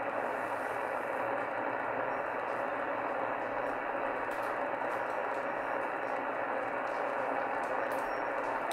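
Steady hiss and static from a shortwave radio's speaker, tuned to CB channel 38 (27.385 MHz) in lower sideband with the BFO on. No voice comes through: the skip signal has faded out.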